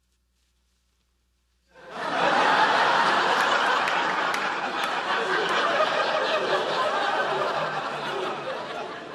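Studio audience laughing. It starts suddenly after near silence, a little under two seconds in, stays loud, and slowly dies down near the end.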